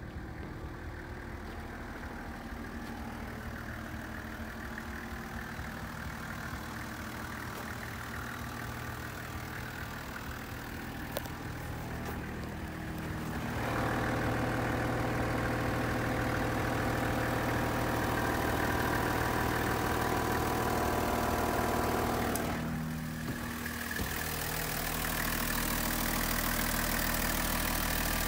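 Toyota Coaster's 1HZ 4.2-litre inline-six diesel idling steadily, louder from about halfway through, with a short dip before it evens out again.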